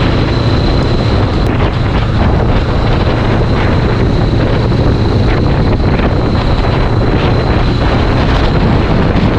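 Heavy wind rushing over the microphone of a moving Honda CBR500R motorcycle, with the parallel-twin engine's low drone underneath and a faint steady high whine.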